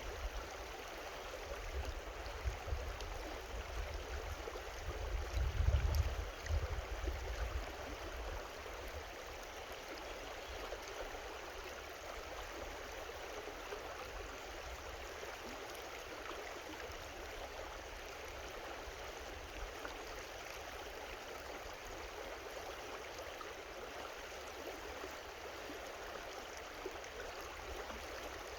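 Small creek flowing, a steady rushing babble of water. Low rumbling on the microphone during the first several seconds, loudest about six seconds in.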